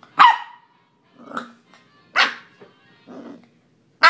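Corgi puppy barking at a mini pumpkin: short, sharp barks about once a second, loud high ones alternating with softer, lower ones.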